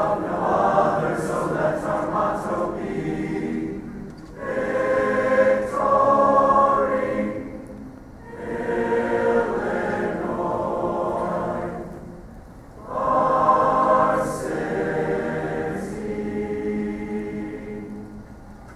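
A large choir singing in four long phrases, with a short break between each.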